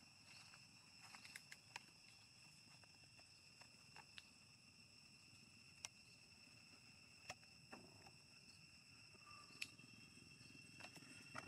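Near silence, with a faint steady high-pitched insect drone and scattered small clicks and rustles.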